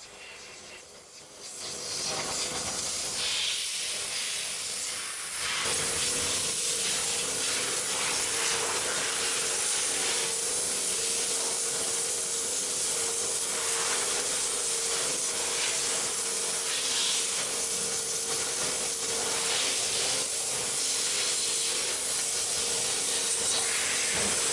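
High-pressure washer jet spraying into a car's engine bay, a steady hiss. It starts about a second and a half in and grows louder about five seconds in, when a steady hum joins underneath.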